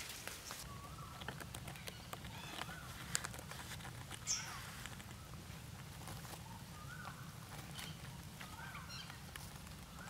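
Parrots in a nest giving faint, short chirping calls every second or two, with scattered light clicks and a brief high squeak about four seconds in.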